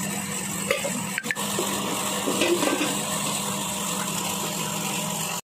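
A steady low mechanical hum with a hiss over it, and a light click a little over a second in.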